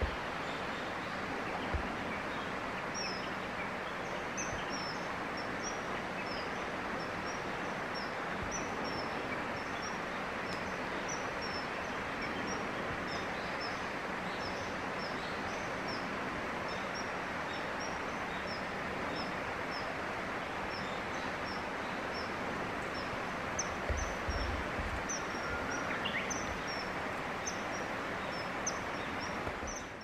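Steady outdoor background hiss with a small bird's short, high chirps repeated over it, a few a second and unevenly spaced. Near the end comes a single rising whistle, and the sound cuts off at the very end.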